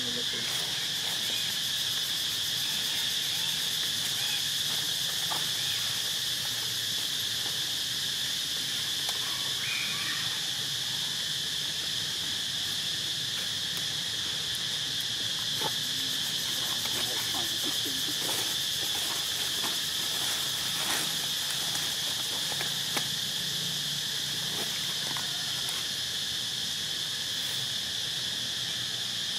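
Steady high-pitched chorus of forest insects, running continuously without a break, with a few faint clicks here and there.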